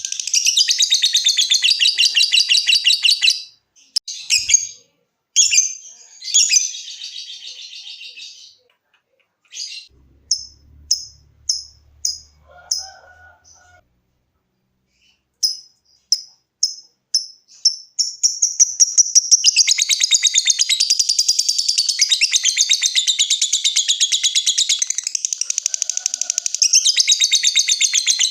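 A lovebird calling, high in pitch. It opens with a fast continuous chattering trill (ngekek). After a break of separate sharp chirps at about two a second (ngetik), a long unbroken ngekek trill starts about two-thirds of the way in.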